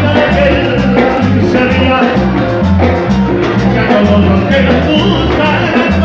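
Live Latin dance band playing an upbeat number, with a stepping bass line, congas and a steady percussion beat.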